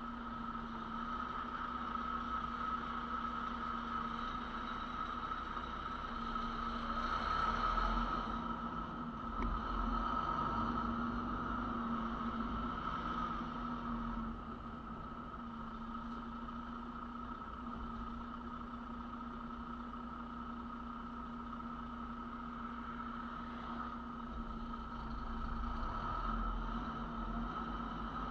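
Semi-truck's diesel engine running at low speed, a steady drone with a constant hum. It swells about a quarter of the way in, eases off about halfway, and builds again near the end as the truck pulls away.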